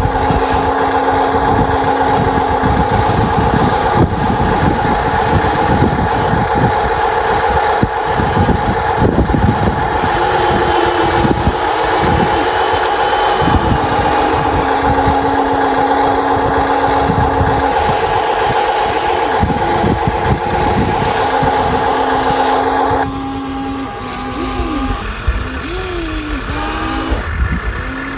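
Electric motors and hydraulic pump of a remote-control model excavator and truck whining steadily, their pitch shifting as the machines work. The main steady whine stops about 23 seconds in, leaving quieter, shorter whines that rise and fall in pitch.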